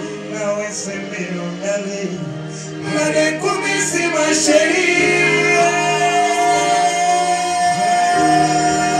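Live band music: men singing into microphones over electric keyboard and bass guitar. It gets louder about three seconds in, and a long note is held through the second half.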